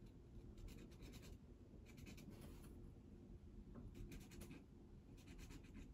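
Faint scratching of a mechanical graphite pencil's fine point on sanded pastel paper, in three short bouts of strokes as it marks in small seed shadows.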